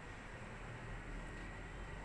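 Steady faint background hiss with a low hum: room tone with no distinct sound.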